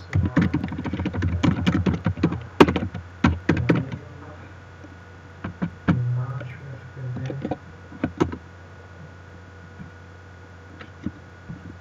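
Typing on a computer keyboard: a quick run of keystrokes for about four seconds, then a few scattered single clicks.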